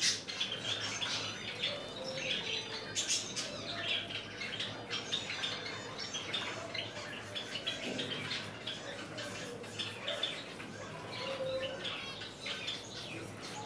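Small cage birds, among them Java sparrows, chirping: many short high chirps overlapping, with a few sharp clicks.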